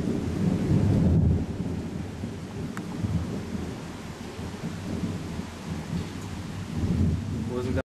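Rolling thunder rumbling over steady rain during a thunderstorm, swelling and fading several times. It cuts off suddenly near the end.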